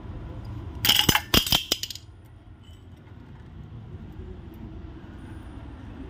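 A quick run of sharp metallic clinks about a second in, as a steel compressor tool is released and handled against the aluminium CVT transmission case.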